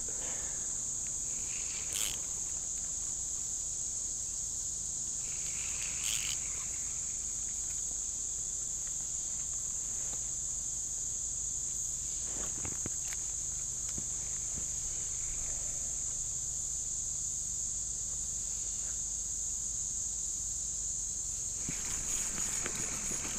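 Insect chorus droning at one steady high pitch throughout, with a few faint clicks.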